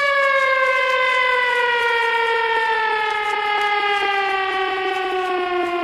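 Air-raid-siren sound in a hardstyle DJ mix: one long tone that falls slowly and smoothly in pitch.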